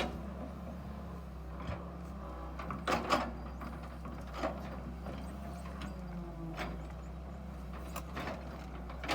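Excavator's diesel engine running steadily, with scattered metallic clanks and creaks from its tracks and boom as it works.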